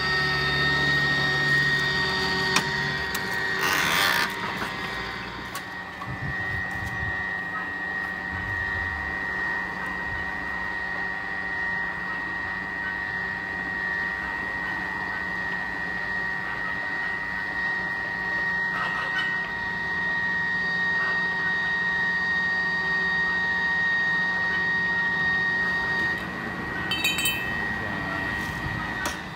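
Electric pipe threading machine running, its die head threading a steel pipe: a steady whine over the motor's hum, with a brief rasp about four seconds in.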